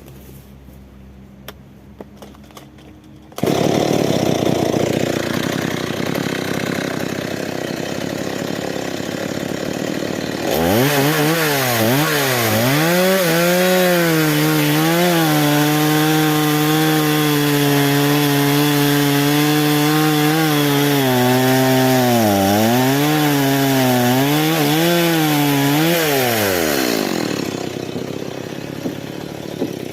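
Stihl chainsaw running after a quiet start, then opened up to full throttle about ten seconds in to cut a hanging sengon log. The engine note dips several times under load and falls back to a lower run near the end.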